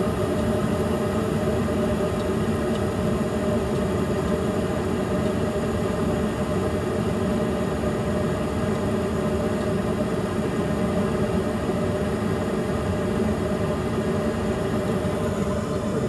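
Trane S9V2 gas furnace running on high fire: a steady mechanical hum from its draft inducer and burners, even in level throughout.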